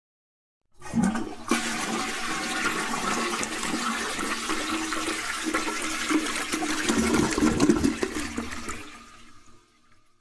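Toilet flushing: the flush starts suddenly about a second in, water rushes and swirls steadily for about eight seconds, then fades away near the end.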